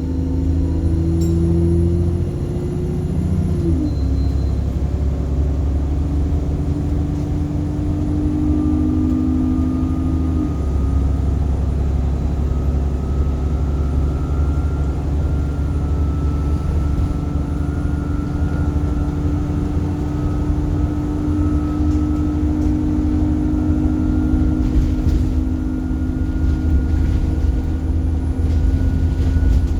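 Alexander Dennis Enviro bus under way, with a heavy low engine rumble and droning tones that drop in pitch twice, about 3 and 10 seconds in, as at gear changes. A thin high whine creeps slowly upward in pitch through the second half.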